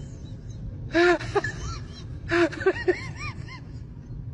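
Small puppy yapping at a cat up a tree: two short high barks, about a second and two and a half seconds in, each followed by a few quick higher yips.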